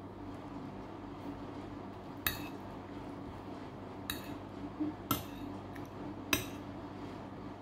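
Metal spoon clinking against a plate four times while scooping rice, over a steady low hum.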